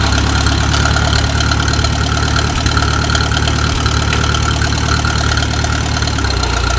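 International Harvester 350 Utility tractor's gasoline four-cylinder engine idling steadily, its note shifting slightly near the end.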